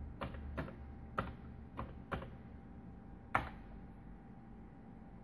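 Keys pressed one at a time on a Commodore 64 keyboard while a password is typed: about six separate clacks spaced roughly half a second apart, the last and loudest about three and a half seconds in.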